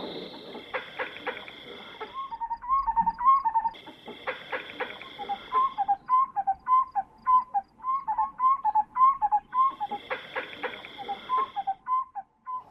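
A bird calling a long run of short whistled notes, about three a second, each rising and falling. A high steady buzz comes and goes in stretches of a couple of seconds.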